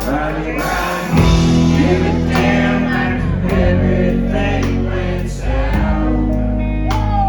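Band music with a singer: sustained instrumental chords under a sung vocal line, with a strong bass.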